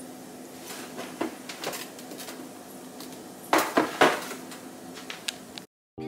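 Kitchen clatter of a plastic colander and food containers being handled and set down on a stone countertop: scattered light knocks, with several louder ones close together a little past halfway.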